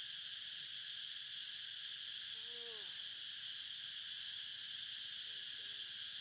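Steady high-pitched drone of insects in the forest canopy. About two and a half seconds in, one short hooting call rises and falls in pitch over about half a second. A few fainter short calls follow near the end.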